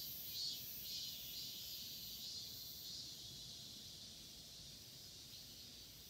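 Outdoor insect chorus: a faint, shrill, high-pitched drone that pulses about twice a second at first, with a still higher hiss coming in long bursts above it, fading gradually.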